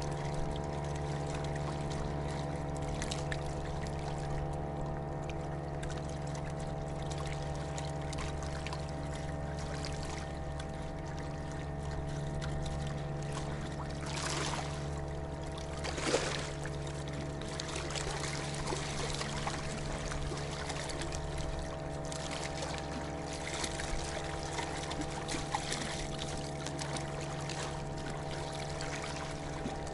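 A boat's outboard motor running steadily, with water splashing and pouring as a bucket is dipped into the river and emptied. The loudest splashes come about 14 and 16 seconds in.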